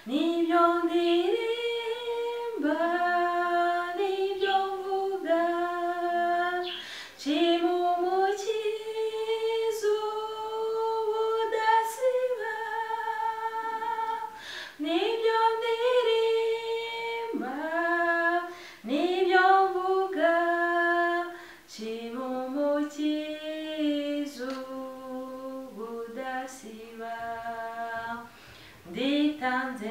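A woman singing a Christian hymn in Kinyarwanda, solo and unaccompanied. She holds long notes in phrases, with short breaks between them.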